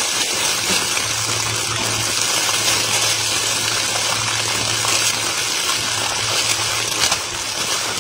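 Clear plastic roasting bag rustling and crinkling as gloved hands twist and tie it shut, over a steady rushing hiss and a low hum.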